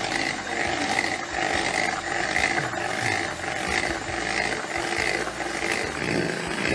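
Electric hand mixer running, its twin beaters whipping cream in a bowl. The motor's steady whine swells and fades about twice a second as the beaters churn the thickening cream.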